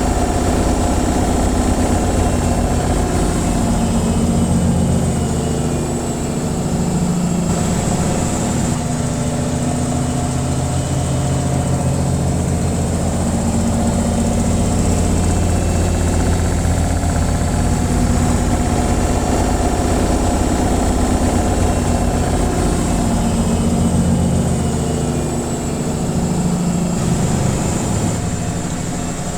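Washing machine on its spin cycle: a loud, steady hum of the spinning drum that eases slightly twice.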